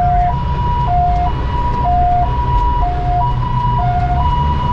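Fire truck's two-tone hi-lo siren sounding, switching between a higher and a lower note about every half second, heard from inside the cab over the low, steady run of the truck's engine.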